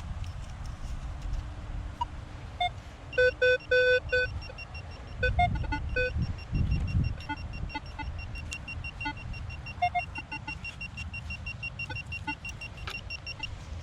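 Electronic beeps from metal-detecting gear while a target is being recovered: a few loud short beeps about three seconds in, then a steady fast chirping, about four or five a second, over low rumbling handling noise.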